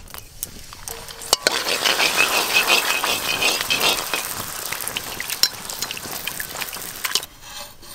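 Hot oil in an iron kadai sizzling and crackling as four rolled fuchka (pani puri) dough rounds deep-fry and puff up, turned with a slotted steel skimmer. The oil is well heated, as puris need in order to puff. The sizzling jumps up with a click about a second in and dies down sharply near the end.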